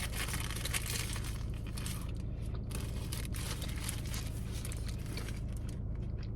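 Close-miked eating sounds: chewing a bite of burger with many small wet, crackly mouth clicks, mixed with crinkling of the burger's paper wrapper.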